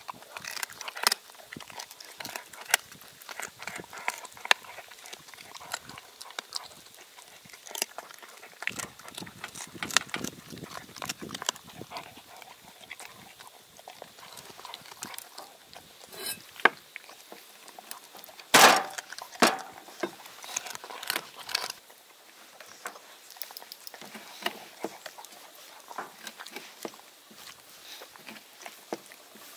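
A dog eating pieces of raw yellowtail off a wooden cutting board: irregular wet chewing, jaw smacks and clicks, with one louder knock about two-thirds of the way through.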